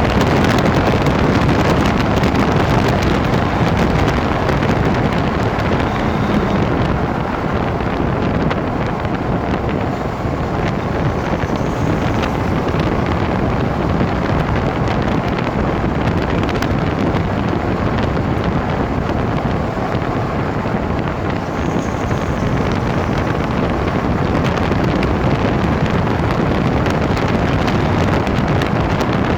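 Land Rover Freelander 2 on the move: a loud, steady rumble of road and drivetrain noise that dips slightly twice. The owner says a grinding noise persists even after he replaced the rear differential.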